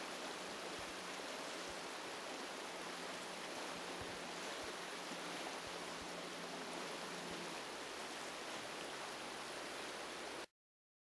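Steady, even rushing hiss with a faint low hum and a few faint clicks, cutting off abruptly about ten and a half seconds in.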